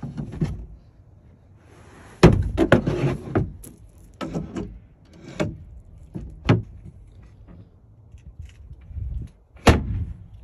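Wooden drawers and panels of a truck-bed camper being pulled out and pushed shut: a string of separate wooden knocks and thumps, loudest about two seconds in and again near the end.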